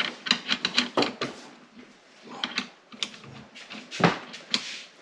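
Quick sharp clicks and clacks from rifle parts being handled, coming in clusters, with a louder knock about four seconds in.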